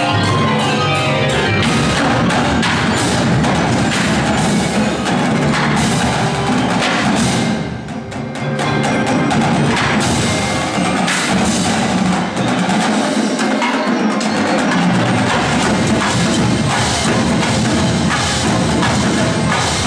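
Indoor percussion ensemble playing: marimbas and other mallet keyboards ring out at the start, then the drumline's snare drums, tenor drums and bass drums join in with fast, dense strokes over the keyboards. The volume dips briefly about eight seconds in.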